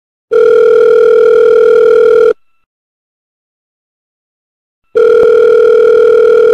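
Telephone ringback tone, the ringing a caller hears in the earpiece while the other line rings: a steady tone that sounds for about two seconds, stops for about two and a half seconds, then sounds again.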